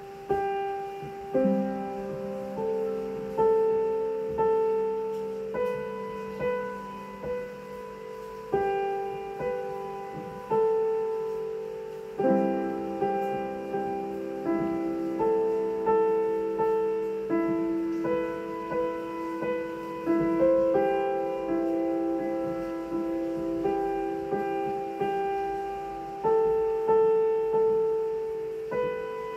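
Slow solo piano music: notes and chords struck one after another and left to ring and fade.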